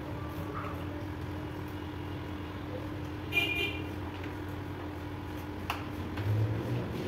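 Steady low hum with a short vehicle horn toot about three seconds in, and a single light click near the end.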